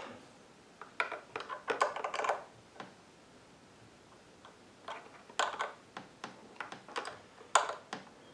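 Light clicks and taps of a hand tool and small metal parts on a generator carburetor as the float bowl is tightened, in two bursts of quick irregular clicks about a second in and again from about five seconds in.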